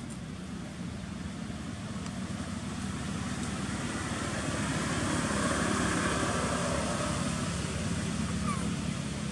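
Low steady engine rumble, growing louder from about four seconds in and easing slightly near the end.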